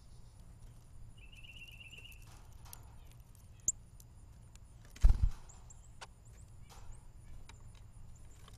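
Birds feeding on a platform seed feeder: sharp clicks and taps of bills and feet on the seed tray, a short rapid bird trill about a second in, and one loud thump about five seconds in as a bird moves on the feeder.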